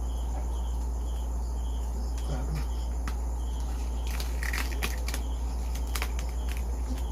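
Crisp crunches of bites into deep-fried pork skin, in a cluster about four to six seconds in. Under them runs a steady low hum, and crickets chirp about twice a second.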